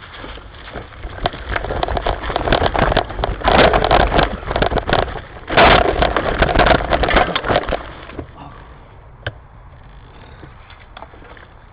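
Dense rustling and crackling of dry leaves and twigs as someone pushes through brush off the trail, with low rumbling handling noise on the microphone. It dies down to faint, scattered rustles about eight seconds in.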